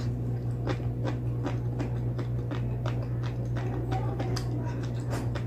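Close-up chewing and wet mouth clicks of a person eating a mouthful of fried chicken and rice, in quick irregular smacks, over a steady low hum.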